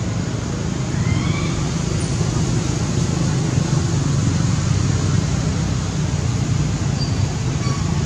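Steady low rumbling background noise, with a couple of faint, short, rising high chirps about a second in and a few faint high notes near the end.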